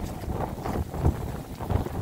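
Wind buffeting the microphone in irregular gusts, a low rumbling roar.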